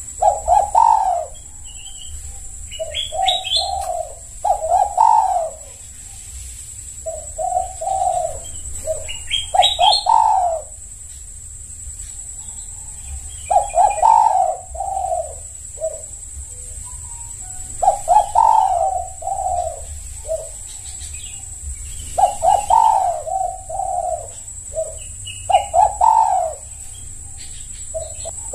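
Spotted dove (tekukur) cooing in repeated phrases of several low notes every few seconds, with higher chirps between the phrases.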